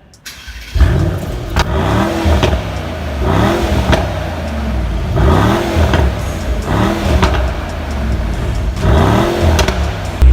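Twin-turbo V8 of a performance sedan revved in quick blips about once a second, each rev rising and falling in pitch, with sharp cracks from the exhaust between some of them.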